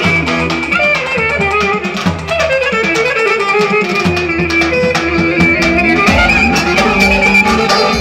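Roman havası dance music: a lead melody winding over a steady drum beat.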